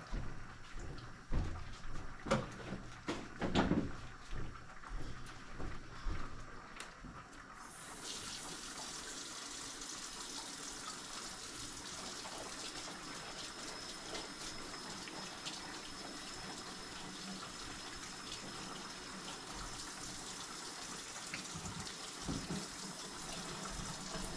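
A few knocks and clatter of kitchen handling, then about eight seconds in a kitchen faucet is turned on and water runs steadily into the sink.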